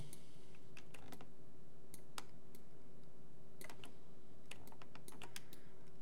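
Computer keyboard keys and mouse buttons clicking, a dozen or so irregular clicks in loose clusters, over a faint steady hum.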